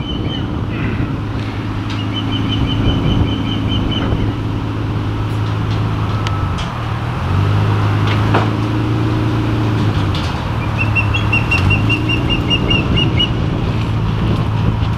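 Nissan Skyline R33 GT-R's RB26DETT twin-turbo straight-six with an aftermarket exhaust, idling fairly quietly as the car rolls backward down the hauler's ramps. The engine note rises a little about seven seconds in. A rapid high chirping comes and goes twice.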